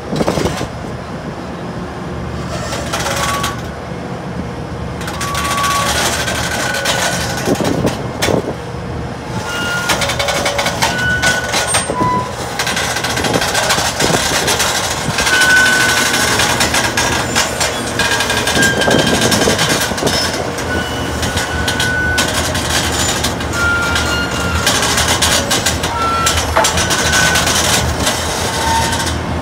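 Liebherr 984 crawler excavator moving on a steel lowbed trailer: its diesel engine runs steadily under the clank of its tracks, with many short high squeaks and knocks.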